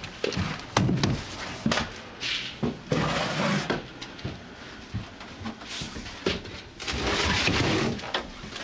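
Scattered knocks, clicks and rustling of handling noise in a small wooden shed: a door being opened and a slatted wooden drying frame being moved about.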